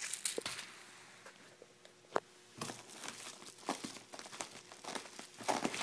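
Bubble wrap and plastic packaging crinkling in short, scattered bursts as hands handle bubble-wrapped parts in a box. There is a single sharp click about two seconds in.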